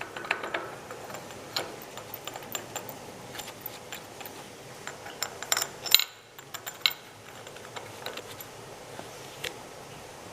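Irregular metallic clicks and knocks of hand tools and metal parts being handled, with a cluster of louder knocks about halfway through.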